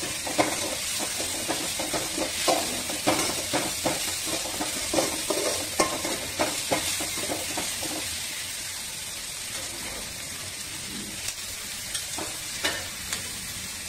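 Sliced onions, tomato and green chillies sizzling in oil in a metal kadai while a perforated metal ladle scrapes and clinks against the pan in quick stirring strokes. About two-thirds of the way through the stirring stops and the pan just sizzles, with a few more strokes near the end.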